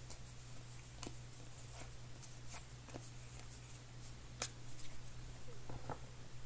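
Cardboard baseball cards being flipped through by hand, each card slid off the front of the stack to the back, giving scattered soft clicks and rustles, one sharper click about four and a half seconds in. A steady low hum runs underneath.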